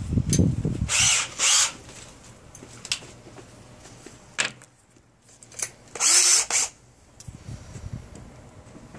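Power drill run in several short bursts of about half a second to a second each, with pauses between them.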